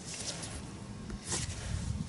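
Quiet handling noise from carburetor parts being worked on at a bench, with one short, light scrape about one and a half seconds in.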